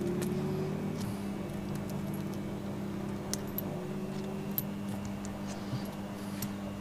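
A few light metallic clicks as a motorcycle foot peg's small parts (coil spring, pivot pin, washers) are handled and fitted together, over a steady low hum.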